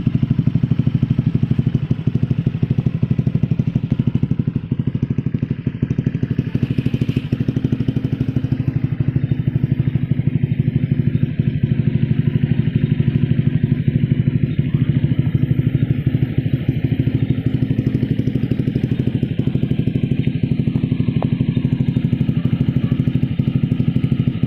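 Honda Click 125i scooter's single-cylinder four-stroke engine idling steadily through an aftermarket SC exhaust, with a rapid, even pulse.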